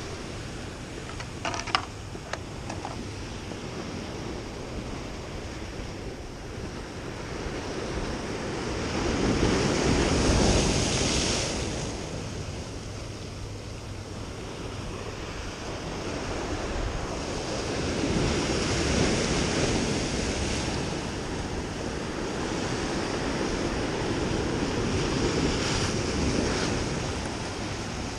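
Ocean surf breaking and washing against the rocks of a boulder jetty, swelling louder three times, with wind on the microphone. A few sharp clicks about two seconds in.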